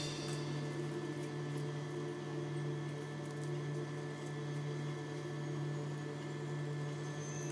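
Faint steady low hum with quiet room tone.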